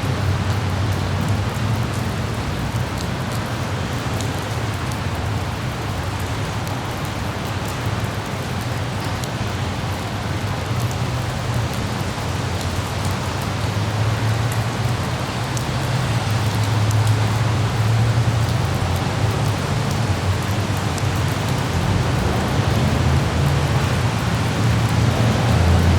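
Light rain falling in a city, a steady hiss with scattered drops ticking, over a continuous low rumble of traffic that grows somewhat louder in the second half.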